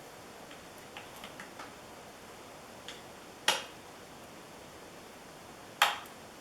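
A few faint ticks, then two sharp plastic clicks a couple of seconds apart: cable connectors being handled and unplugged from the TV's circuit boards.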